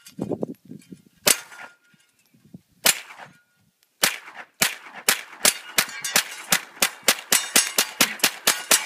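Gunshots from a semi-automatic firearm: a few single shots, then a fast string of about twenty shots at roughly four to five a second.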